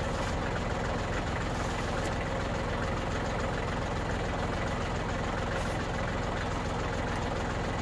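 Engine of a front-end loader tractor idling steadily.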